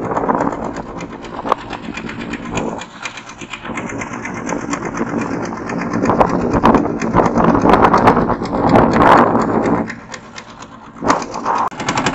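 Engine of a wooden river boat running, a rapid, even beat of engine strokes that swells and eases, dipping briefly near the end.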